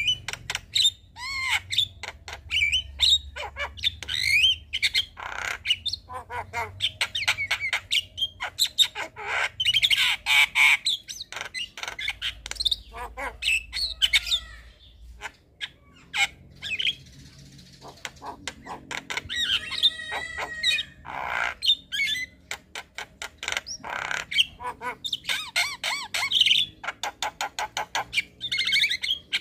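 Javan myna (jalak kebo) chattering: a fast run of harsh squawks, clicks and whistled notes, with a short lull just past the middle.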